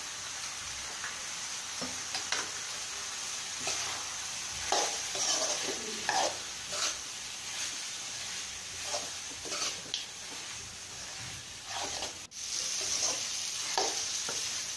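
A steel spoon stirring and scraping chicken masala around a steel pot, in irregular strokes, over a steady sizzle of the chicken frying in oil.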